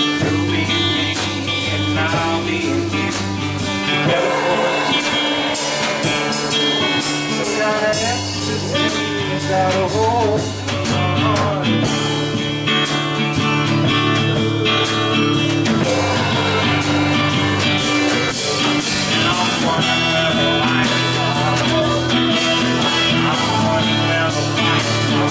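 Live acoustic blues: an acoustic guitar and a small drum kit of snare and cymbals playing together with a steady beat, under a lead line with bending notes.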